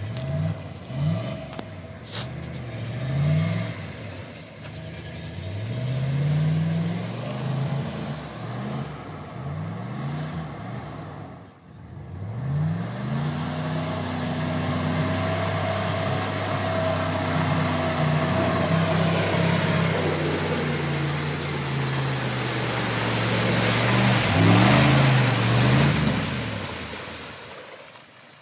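Dodge Ram 1500's 318 cubic-inch V8 revving in repeated short bursts, then held at high revs for a long pull with a rushing hiss, as the truck churns through mud. A few more quick revs come near the end before the engine fades away.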